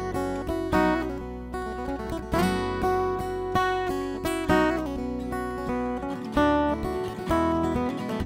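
Acoustic folk-bluegrass string band playing an instrumental intro: strummed acoustic guitar chords and picked string notes over a bass line, with no singing yet. The low end thins out about six seconds in.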